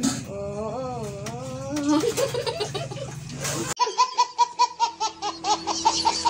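A child's voice holding a wavering sung 'oh', cut off suddenly about four seconds in by a baby's laughter, quick even laughs about six a second.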